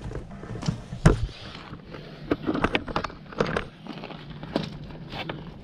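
Irregular clicks and knocks from someone moving around a zero-turn mower and handling its parts, with one sharper knock about a second in.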